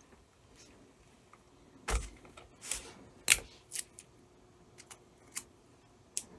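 Taping transfer paper onto a glass crystal block: a strip of tape pulled from a desktop dispenser and torn off, amid the taps and clicks of handling paper and block. A series of short clicks, with a thump about two seconds in and the sharpest click a little after three seconds.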